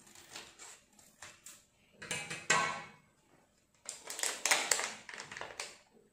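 Crinkling and rustling of a Jolo chips packet as it is handled and opened. It comes in a few crackly bursts, the loudest about two seconds in and again between four and five and a half seconds in.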